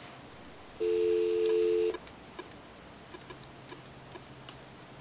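Telephone dial tone: two steady tones sounding together for about a second, starting about a second in, followed by a run of faint ticks as the number is keyed in.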